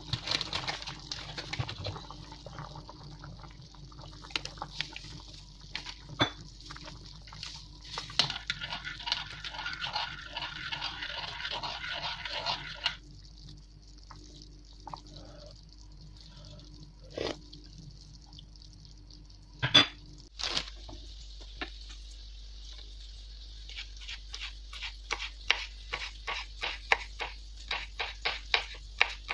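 Stainless saucepan of broth boiling on an electric stove, bubbling and popping. Near the end a knife chops celery on a bamboo cutting board in quick, even strokes, about four a second.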